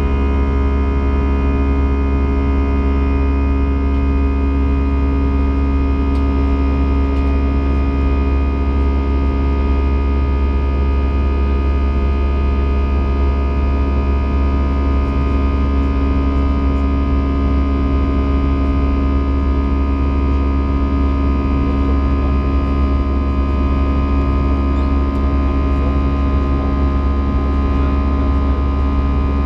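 Steady cabin noise of an Airbus A320 in flight: a constant drone of jet engines and rushing air, with a strong low hum and several steady tones.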